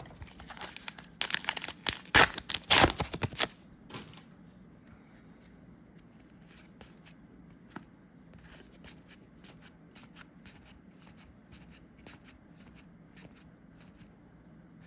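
Trading card booster pack crinkling and tearing open in loud rustles over the first few seconds, then soft flicks of cards being slid one after another off the stack.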